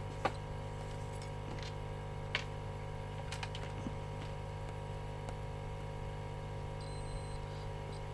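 Steady electrical hum of bench equipment, with a few light, sharp clicks of metal tools touching a phone circuit board.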